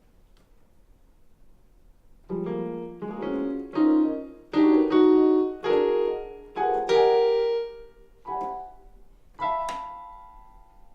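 Piano played after about two seconds of quiet: a run of about ten chords struck at uneven intervals, the last one left ringing and fading out.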